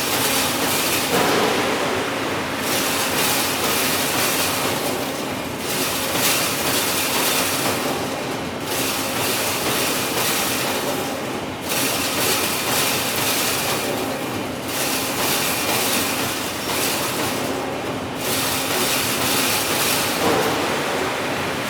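Wire fence-making machine running, a steady mechanical noise whose high hiss dips briefly about every three seconds as the machine cycles.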